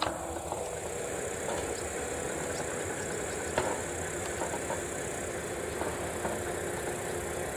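ET22 electric freight locomotive hauling a train of wagons and approaching from a distance, a steady hum with a couple of sharp clicks.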